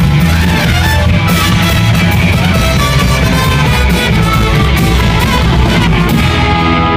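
Live rock band playing loud, with electric guitar, bass and a drum kit with crashing cymbals. Near the end the drums and cymbals stop, leaving guitar chords ringing.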